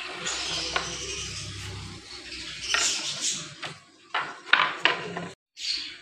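Wooden slats being handled and fitted into place: a scraping rustle, then a string of sharp knocks and clatters over the second half.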